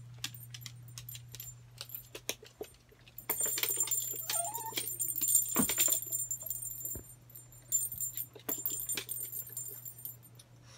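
A small dog playing with a hard plastic ball full of holes on a wooden floor: scattered clicks and knocks as the ball is pushed and hits the boards, with a dense run of rattling clicks in the middle lasting a few seconds.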